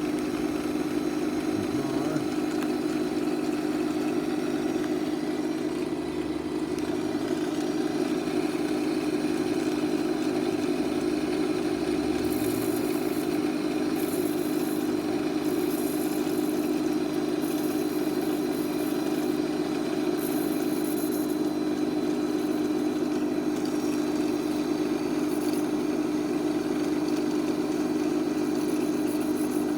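Stark No. 4 lathe running steadily on its electric motor and belt drive, an even hum. Short bursts of high hiss come and go in the middle stretch.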